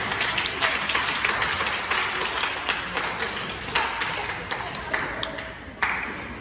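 Spectators clapping, many quick claps together that thin out and fade over a few seconds, with a brief fresh burst of clapping twice near the end.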